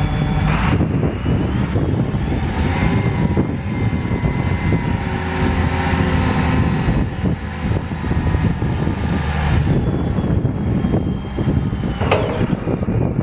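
Cat 930H wheel loader's diesel engine running steadily under load as the boom and bucket come down and the machine drives, with a faint whine that shifts in pitch.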